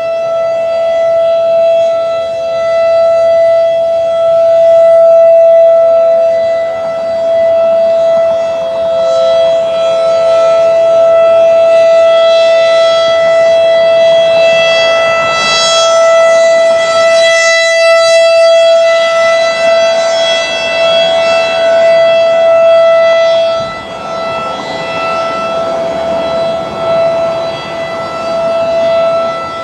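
Federal Signal 2001 DC tornado siren sounding a steady single-pitch tone at full speed. Its loudness swells and fades as the rotating siren head sweeps past.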